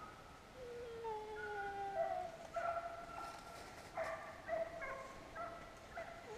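Hog-hunting dogs baying: a long, slightly falling howl, then a string of shorter, evenly pitched bawls repeated several times. This is the bay of dogs chasing a wild hog.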